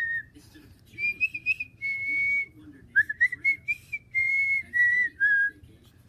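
A person whistling a string of short notes: several held steady, some warbling up and down, the last one dropping slightly lower, with brief pauses between.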